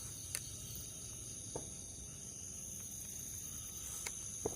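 Night insects trilling steadily in two high pitches, with a few short clicks over them, the sharpest near the end.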